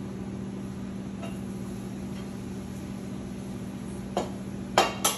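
Steady low hum of a commercial kitchen, with a light knock about four seconds in and a few sharp clatters of kitchenware near the end as plates and utensils are handled at the griddle.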